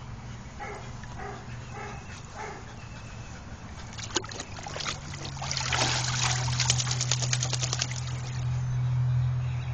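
Dog splashing in a shallow plastic wading pool, biting at water running from a garden hose; the splashing gets louder and busier about halfway through as it wades toward the rim.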